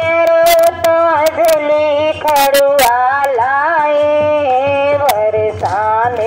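Devotional aarti singing, voices holding and bending long notes, with sharp percussive strikes scattered through and a quick cluster of them a little past halfway.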